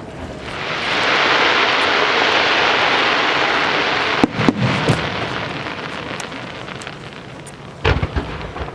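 Aerial fireworks from a large star mine: a dense crackling hiss swells in, holds for a few seconds, then slowly fades. Sharp bangs come at about four and a half seconds and again near the end.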